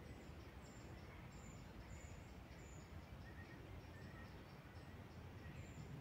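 Quiet woodland ambience: faint, thin, high-pitched bird calls repeated about twice a second, with a few lower chirps, over a low steady rumble.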